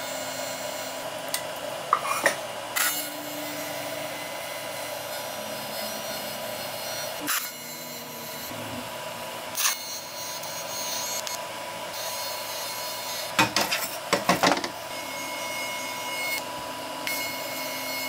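Small water-cooled TIG torch welding a stainless steel exhaust pipe: a steady hiss from the arc, broken by a few sharp clicks and knocks, with a cluster of them about fourteen seconds in.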